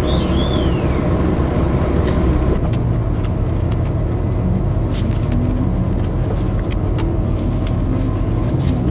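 Train interior noise as the train pulls away from the station from a standstill: a steady low rumble with a few sharp clicks from the running gear. A brief high chirp sounds at the very start, and a rising tone begins near the end as the train gathers speed.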